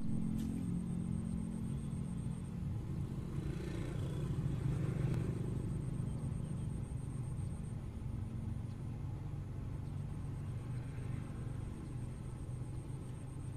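Low, steady motor-vehicle engine rumble, swelling for a couple of seconds about four seconds in as a vehicle passes.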